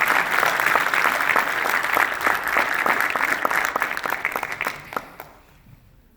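A congregation applauding, many hands clapping together, fading out about five seconds in.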